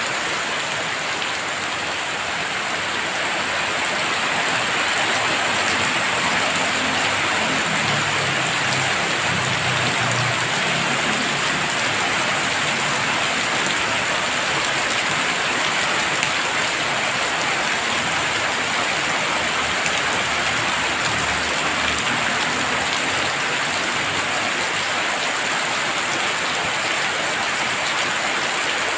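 Heavy rain falling steadily, a dense, even hiss of drops that swells slightly a few seconds in.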